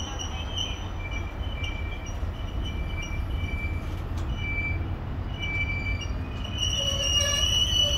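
Loaded ballast wagons of a freight train rolling past on the rails: a steady low rumble with short high-pitched wheel squeals coming on and off, the squeal turning steadier and louder near the end.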